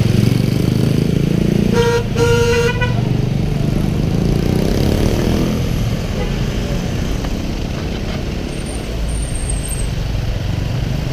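Jammed street traffic: steady engine rumble from nearby vehicles, with a vehicle horn honking twice about two seconds in, a short toot then a longer one.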